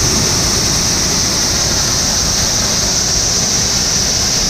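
Steady running noise of a grain truck on the move: low engine and road rumble under a strong, even high hiss.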